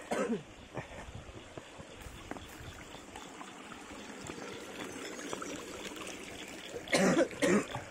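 Shallow creek water trickling over rocks, a steady, even sound. About seven seconds in, a person's voice cuts in twice, briefly.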